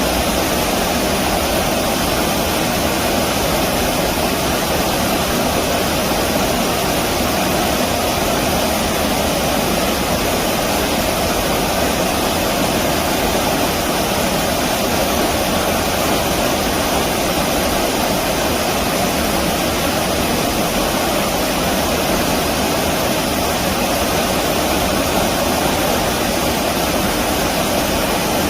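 Steady rushing of flowing stream water, even and unbroken throughout.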